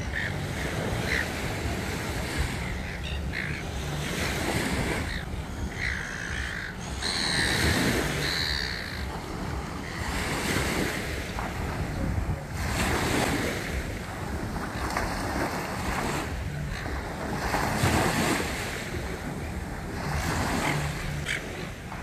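Small harbour waves washing up on a sandy beach, swelling and falling back every few seconds, with wind rumbling on the microphone.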